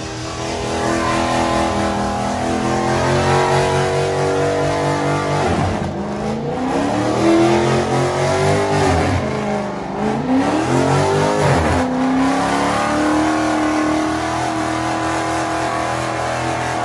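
Car engine revving hard and held at high revs, its pitch dropping away sharply and climbing back again about six, ten and twelve seconds in.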